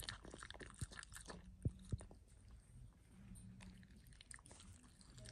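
A puppy eating noodles and beef from a stainless steel bowl: faint, wet chewing and mouthing with many small sharp clicks, most of them in the first two seconds.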